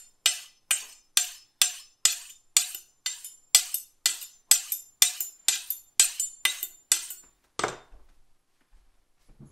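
Kitchen knife being honed on a sharpening steel: about fifteen quick metal-on-metal strokes at roughly two a second, each with a short bright ring, stopping about seven seconds in.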